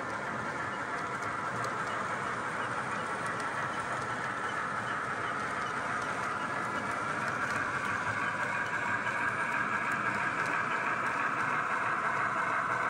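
Model freight train rolling along the layout track: a steady whirring rumble of motors and wheels, with faint regular clicks from the wheels over the track, growing a little louder from about halfway through.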